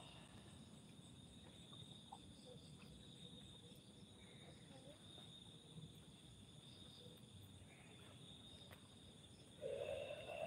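Faint night chorus of crickets, a steady high trill with a regular pulsing chirp above it. A brief louder sound breaks in near the end.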